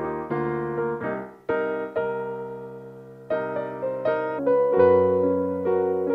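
Background music: solo piano playing gentle chords and single notes, each struck note dying away before the next.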